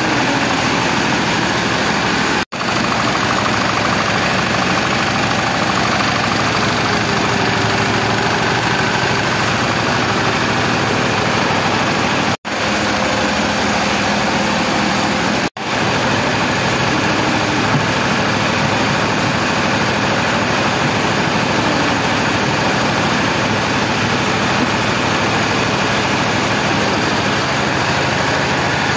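Rice mill machinery running: a loud, steady mechanical din with grain pouring through the machines. The sound drops out for an instant three times.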